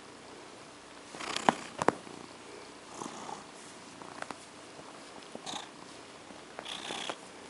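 Domestic cat purring steadily while being petted, with short rustles of a hand stroking its fur several times and two sharp clicks about a second and a half in.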